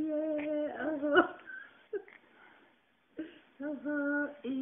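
A voice singing a dance song in long, level-pitched chant-like notes, with a pause in the middle. There is one sharp knock about a second in.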